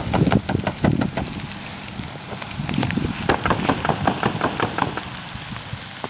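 Wind gusting hard across the microphone as a rumble that swells and fades, with many irregular sharp crackling clicks over it.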